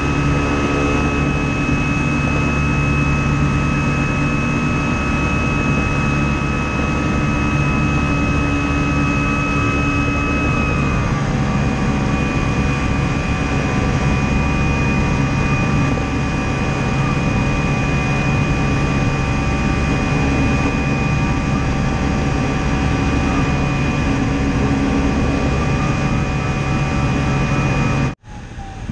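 Steady airflow rush inside a glider cockpit in flight, with steady tones running through it; a higher tone drops to a lower one about eleven seconds in. The sound cuts off abruptly near the end.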